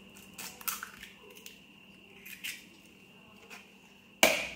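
Hen's eggs being cracked by hand into a plastic mixing bowl: small clicks and crackles of eggshell being pulled apart, then one sharp crack about four seconds in as the next egg is knocked against the bowl's rim.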